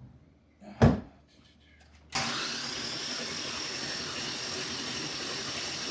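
A sharp knock about a second in, then the starter suddenly cranks the swapped-in GM LS1 V8 at a steady, even pace. The engine sounds odd because the spark plugs are out, so it turns without compression or firing while it builds oil pressure.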